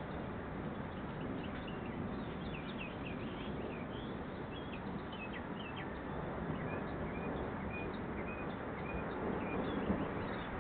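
Small birds chirping, with quick short calls in a run about a second in and a repeated series of short calls past the middle, over a steady outdoor rushing background.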